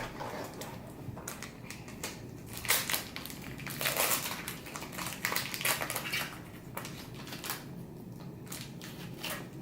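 Trading card pack wrapper being torn open and crinkled, in irregular bursts of crackling, with cards shuffled in the hands.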